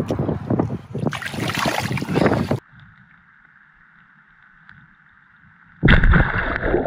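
Water sloshing and splashing around a landing net as a brown trout is eased back into the water, with wind buffeting the microphone; it cuts off about two and a half seconds in to a faint steady underwater hiss. Near the end a sudden loud splash breaks in, heard from under the water: an osprey plunging onto a trout at the surface.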